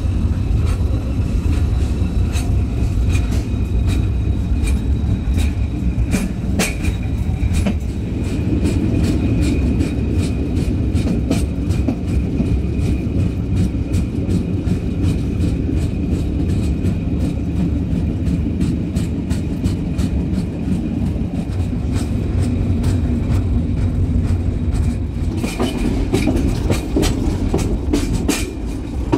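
Narrow-gauge train running, heard from an open carriage: a steady rumble of wheels on the track with frequent clicks and clacks, over a thin steady high whine.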